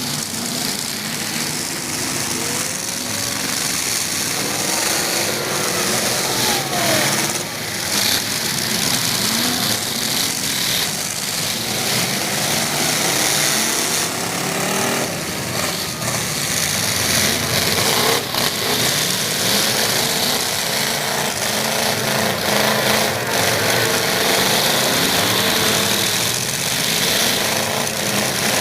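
Several demolition derby truck engines running and revving hard together, the pitch rising and falling, with a few sharp bangs of collisions.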